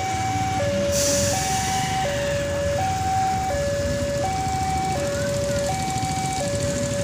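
Railway level-crossing warning alarm sounding its electronic two-tone chime, a higher and a lower note alternating steadily, each held a little under a second. This signals an approaching train while the barriers are down. Engines of waiting road vehicles run underneath.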